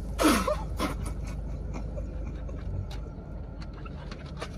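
A girl's short vocal sound, falling in pitch, about a quarter second in. After it there is only a steady low hum with scattered faint clicks.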